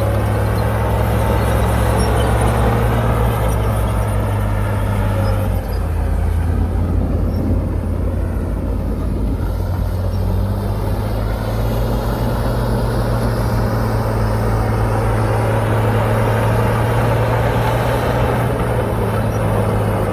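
Heavy diesel engine of earthmoving machinery running steadily. Its note drops a little about six seconds in and rises again about halfway through.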